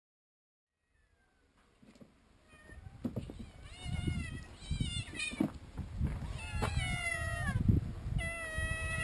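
Several hungry cats meowing insistently to be fed. Their calls begin a couple of seconds in and come faster and overlap toward the end, over a low, uneven thumping and rustling.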